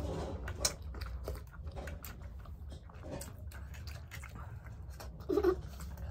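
People biting into and chewing momo dumplings, with scattered wet smacks and clicks over a steady low hum. A brief vocal sound, the loudest moment, comes about five seconds in.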